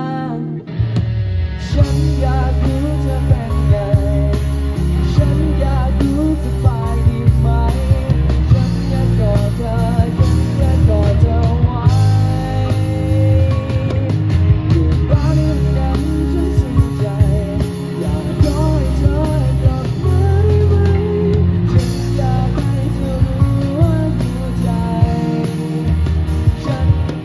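A live band with electric guitars, bass, drum kit and keyboard playing a pop-rock song. After a quieter stretch of held chords, the drums and full band come in about two seconds in and play on with a melody over them.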